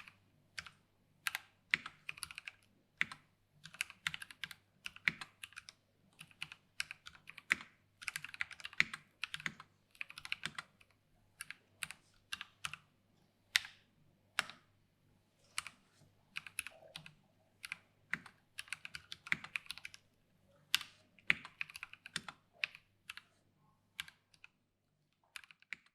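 Typing on a mechanical keyboard with prebuilt Gateron Brown tactile switches and PBT keycaps in an aluminium case: bursts of key strokes with short pauses, including a few louder single key hits.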